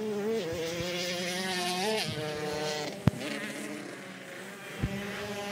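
125 cc two-stroke race motorcycle engines running on an ice track, their pitch rising about two seconds in and dropping again soon after. Two sharp clicks come about three seconds in and near the end.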